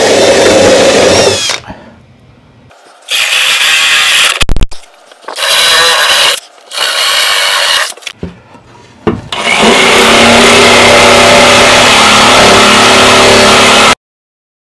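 Cordless drill boring starter holes through a plywood panel in several short bursts, so a jigsaw blade can be put in to cut out window openings. Near the end a power tool runs steadily for about five seconds and then cuts off abruptly.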